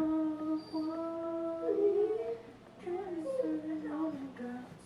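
A woman's voice singing a tune unaccompanied, in long held notes that slide between pitches.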